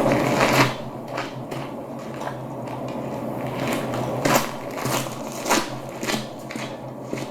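Music played through Klipsch R-51M bookshelf speakers: scattered sharp clicks and knocks over a steady low hum, with no singing.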